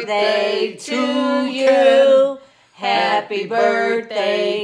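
Several voices singing together without accompaniment, in long held notes, with a short break about two and a half seconds in.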